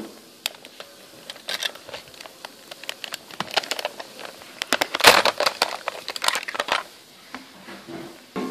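Plastic toys handled and knocked about on a bed: scattered clicks and clatter, with a loud crackling rustle about five seconds in.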